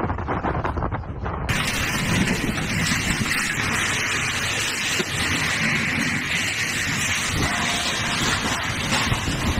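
Storm wind gusting hard, with wind rumbling on the microphone. About a second and a half in it changes abruptly to a dense, steady rush of wind-driven heavy rain.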